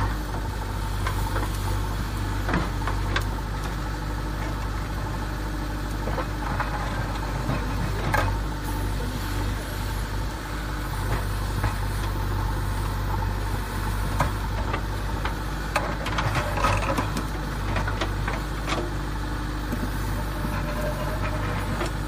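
Engine idling: a steady low drone, with scattered clicks and small rattles over it.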